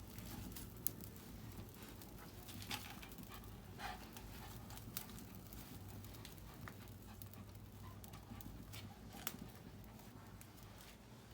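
A dog panting faintly, with a few scattered sharp clicks and snaps.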